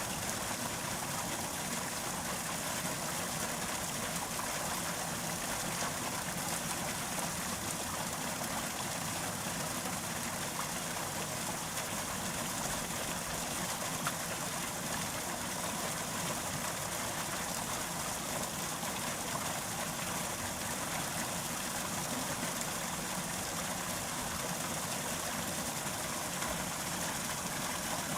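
Small brook babbling and trickling over stones, steady throughout.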